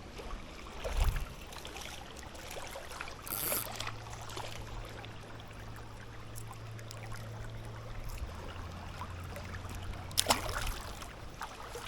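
River water running steadily, with a sharp knock about a second in and another short loud splash-like burst near the end.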